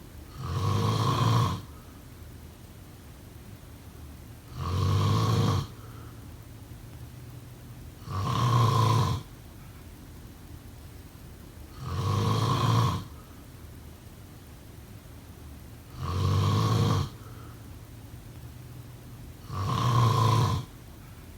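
A person snoring: six loud snores at an even pace, about four seconds apart, each lasting about a second.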